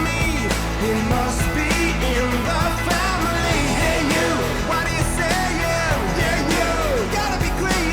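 Rock song with a sung vocal over drums and bass, playing steadily.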